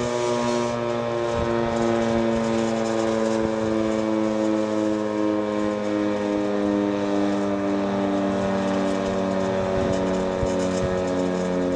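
Federal Signal 2T22A dual-tone outdoor warning siren sounding its steady alert chord, the tones pulsing and slowly falling in pitch. The siren is clogged at the top.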